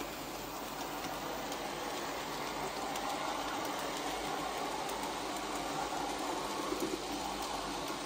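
Model train running along the track: a steady rolling rattle of small wheels on the rails with a few light clicks, a little louder in the middle as the wagons pass close by.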